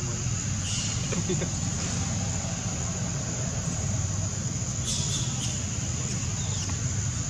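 Insects droning steadily, over a steady low hum, with a few short high chirps about a second in and again around five seconds.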